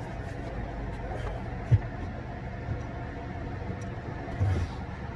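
Steady low mechanical hum, with a sharp knock about a second and a half in and a duller thump near the end as a metal door hinge and a cordless drill are handled against a wooden bed frame.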